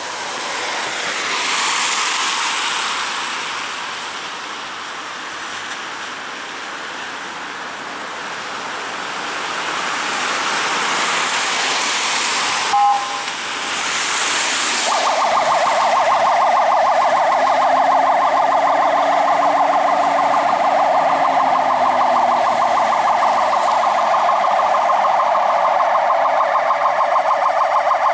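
Fire engine's electronic yelp siren, a fast steady warble, comes on about halfway through as the Renault Midlum truck leaves on an emergency call. Before it, tyres of passing cars hiss on the wet road, and a brief tone sounds just before the siren starts.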